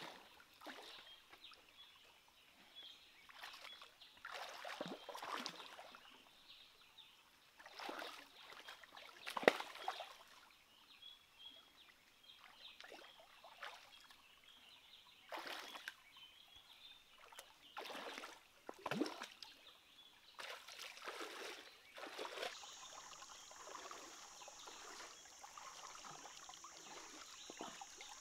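Shallow stream water splashing and sloshing in short irregular bursts as hands grope through it for fish, over a faint trickle. A steady high-pitched buzz comes in near the end.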